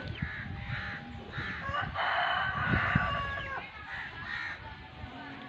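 A rooster crowing once, about two seconds in, for roughly a second and a half, with shorter bird calls around it.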